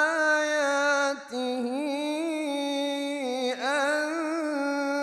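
A man's voice reciting the Quran in melodic tajwid, drawing out 'wa min ayatihi' in long, wavering held notes, with a short break about a second in.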